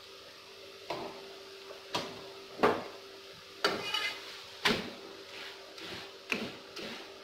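Steel spatula knocking and scraping on a flat metal tawa as a methi paratha is pressed and turned: sharp knocks about a second apart, with one longer scrape near the middle.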